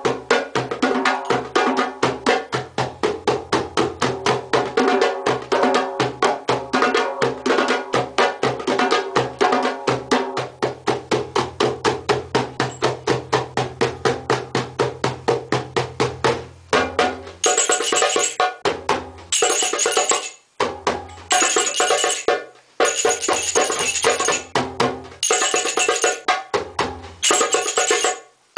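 Hand drums, led by a djembe-style goblet drum, played in a fast, steady rhythm. About two-thirds of the way through, high jingling percussion joins in short bursts with brief breaks between them.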